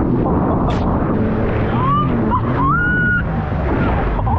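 Sea-Doo FishPro jet ski running at speed over the water, its engine droning under a steady rush of water and wind. About halfway through, a short rising tone rises and then holds for a moment.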